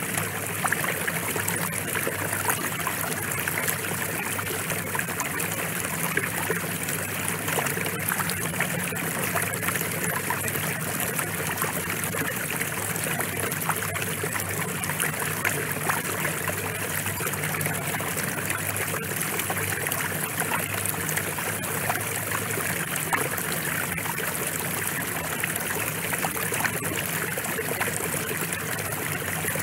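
Steady rain: an even hiss of many small drops that keeps up without a break.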